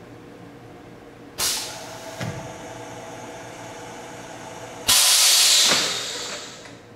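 Two bursts of compressed-air hiss from the longitudinal seam welder's pneumatic system. The first comes about a second and a half in and fades into a steady lower hiss with a faint whine while the torch carriage traverses. The second, louder burst comes about five seconds in and dies away over nearly two seconds.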